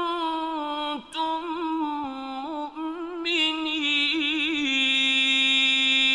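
Male Quran reciter's voice in melodic tajweed (mujawwad) recitation: a long drawn-out line with rapid ornamental pitch turns, a brief break about a second in, then growing louder and held steadily on one note near the end.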